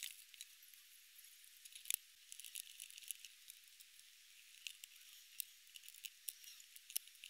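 Faint, scattered small clicks and taps of a graphics card and a small screwdriver being handled on a desk as the card is refitted, with one sharper click about two seconds in.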